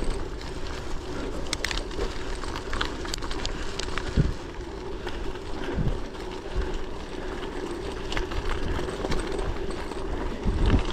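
Gravel bike being ridden: tyres rolling with a steady hum, a low rumble of wind on the microphone, and scattered light clicks.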